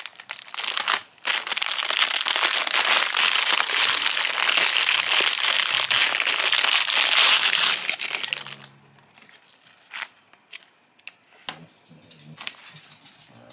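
Clear plastic packaging crinkling loudly as it is handled and opened to get at hair rollers, for about seven seconds. After that come quieter, scattered rustles and clicks as the rollers are handled.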